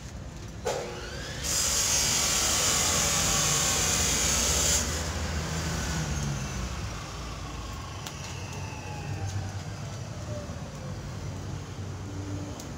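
A loud hiss of escaping compressed air lasts about three seconds and cuts off sharply. It plays over a steady low rumble, with a tone that falls slowly in pitch afterwards, like a vehicle passing.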